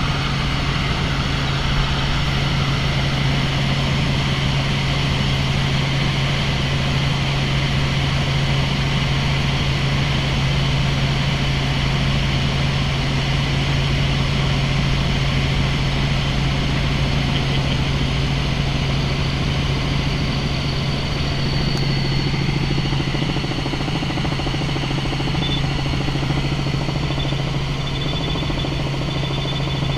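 Helicopter running steadily in flight: a constant, loud, low hum.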